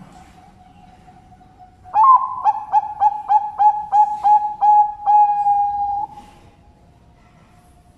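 Zebra dove (Bangkok-line perkutut) singing: an opening coo, then a quick run of about ten short rhythmic coos ending in one long held note, about four seconds in all. Fainter cooing from another dove comes before and after it.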